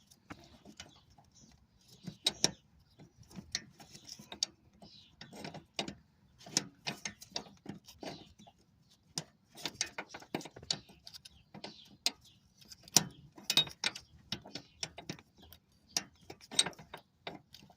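Metal hand tools clicking and clanking on the power steering line fittings of a car engine: irregular sharp clicks and knocks, a few louder ones, as a wrench is worked in a tight space.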